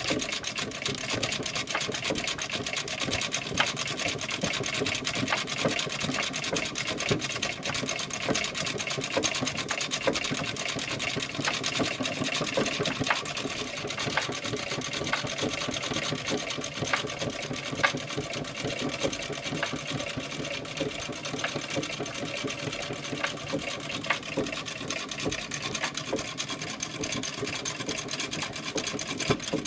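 1865 Florence sewing machine running steadily, its mechanism making a fast, even clatter with no pause.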